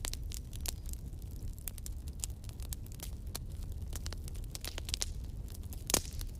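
Burning firewood crackling: irregular sharp pops and snaps over a steady low rumble of the flames, with one louder pop near the end.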